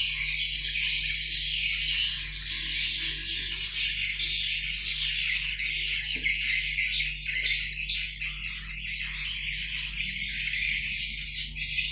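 Swiftlet chicks chirping, a dense, continuous high-pitched twittering, with a louder chirp a little under four seconds in.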